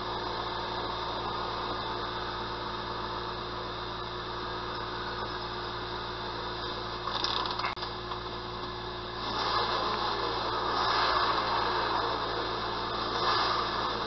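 Ford Mustang 5.0 V8 running steadily with a low hum, heard from inside the car, now that the engine starts and runs again after the engine computer repair. There is a short click about halfway through, and the sound gets louder and rougher from about nine seconds in.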